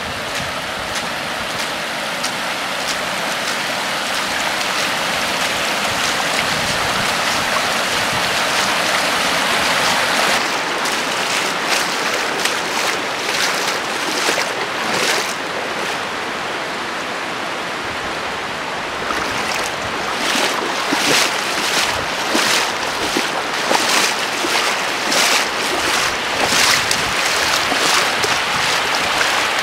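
Floodwater rushing across a flooded street and lawn: a steady hiss of moving water. From about a third of the way in, many short sharp crackles ride on it.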